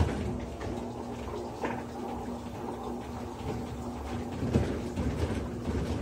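Electrolux LAI17 17 kg top-load washing machine spinning with a slightly unbalanced load of towels: a steady motor hum over a low rumble, with a few short knocks, the loudest about four and a half seconds in.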